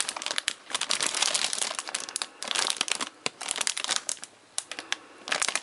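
Clear plastic polybag crinkling as it is handled and turned over, with the plastic model-kit runners sealed inside. It comes in irregular bursts, with a short lull near the end.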